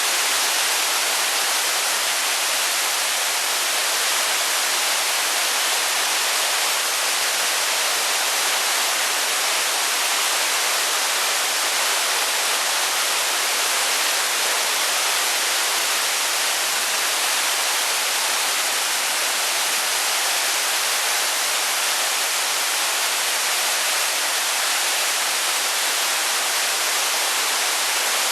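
Rushing water of a waterfall or mountain stream in a gorge: a steady, even hiss of falling water with no change in level.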